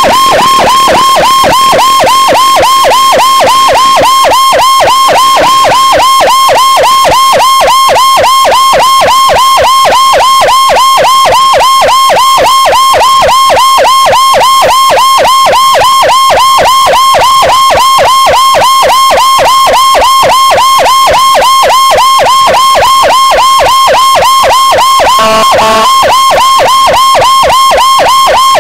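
Motorcycle-mounted CJB 200E electronic siren through a TOA loudspeaker, sounding a fast yelp of about four rising-and-falling cycles a second to clear traffic for an ambulance. It is very loud and close, with a brief lower-pitched blast near the end.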